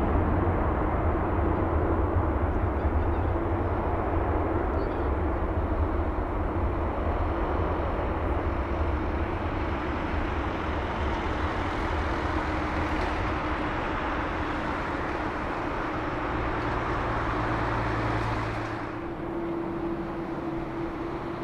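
Boeing 787-8 airliner's jet engines running at low taxi power as it rolls slowly past: a steady rumble with a hum over it. Near the end the deep rumble drops away and it gets a little quieter.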